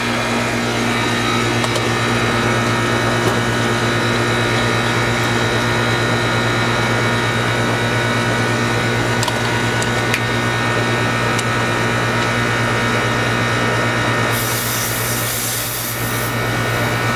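Goodman 3.5-ton outdoor condensing unit from 2000 running in cooling mode: a steady hum from the compressor with the condenser fan running. A short hiss comes in near the end.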